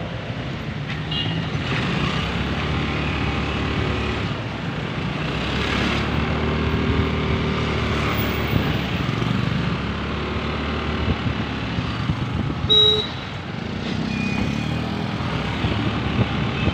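Riding a motorcycle through town traffic: the bike's engine running with wind and road noise and other vehicles passing. A short, loud beep sounds a little over three-quarters of the way through.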